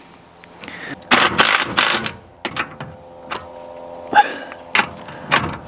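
Handling noise on a metal roof rack as the awning is fitted: a stretch of rustling and scraping about a second in, then a string of separate sharp clicks and knocks of metal parts.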